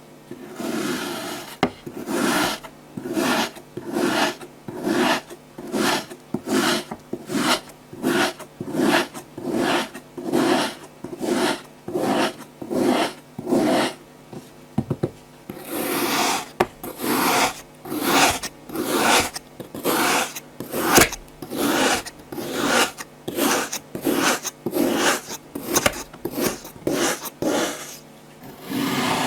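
Kinetic sand being cut or pressed with crunchy, rasping strokes, a little more than one a second, with a short pause about halfway through.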